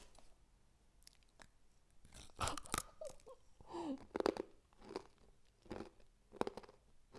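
Crisp chocolate-chip cookies being snapped and broken apart by hand, a series of sharp crunches and crackles, the loudest about two and a half seconds in, then more roughly once a second.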